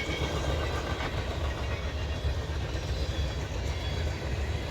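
CSX freight train rolling past, its cars making a steady low rumble on the rails.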